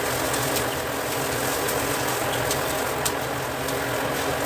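Onions and carrots frying in oil in a pan: a steady sizzle with a few faint crackles.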